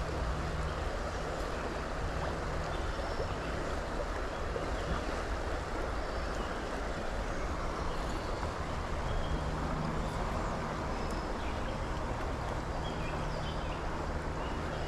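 Steady rush of flowing creek water, with a low hum underneath that fades in and out.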